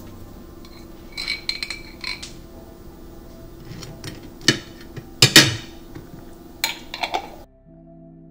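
Metal cutlery clinking and scraping on a ceramic plate: a few short ringing clinks about a second in, then several sharper knocks and scrapes through the middle and later part. Just before the end it cuts off to soft sustained music tones.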